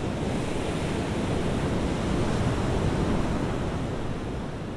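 Ocean surf: waves breaking and washing up on a beach, a steady rushing noise.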